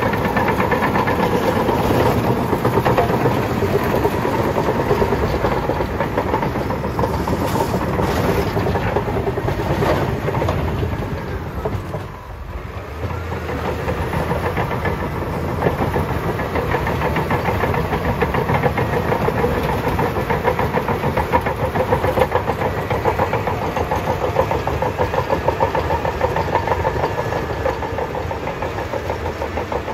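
Bulldozer's diesel engine running close by, a loud steady rumble. It drops away briefly about twelve seconds in and then comes back.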